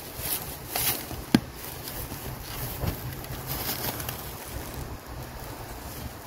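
A steel shovel being stepped into sandy, leaf-covered soil, its blade scraping and crunching through dry leaves and dirt, with one sharp knock about a second and a half in.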